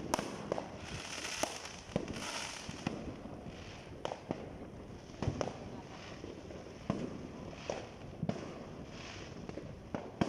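Fireworks going off in the distance: sharp bangs at irregular intervals, roughly one a second, with short bursts of hissing crackle between them.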